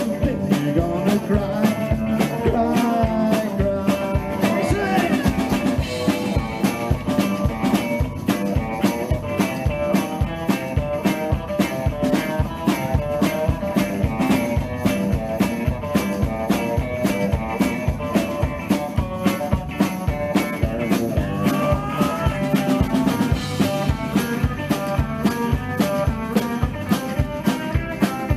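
Live rock and roll band playing an instrumental passage: electric guitars over an upright double bass and a drum kit, with a steady beat.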